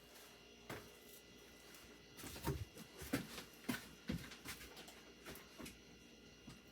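Faint, scattered knocks and rustles of frozen food packages being handled and taken out of a 12 V fridge/freezer.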